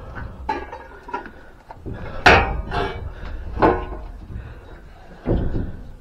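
Junk being shifted and knocked together while rummaging through a cluttered pile: a handful of separate clunks and knocks, the loudest a little over two seconds in.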